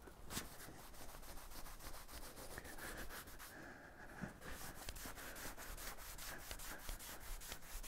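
A cloth rag in a gloved hand rubbing wood stain onto a sanded wooden board, in quick repeated wiping strokes; a faint, even scrubbing.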